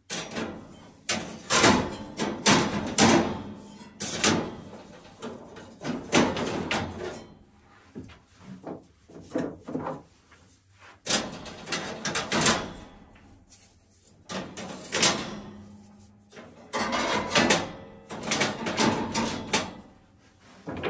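Sauna stones knocking and clacking against each other and against the metal stone cage of a sauna heater as they are set in place by hand around the heating elements. The clatter comes in several bursts of clicks with short pauses between them.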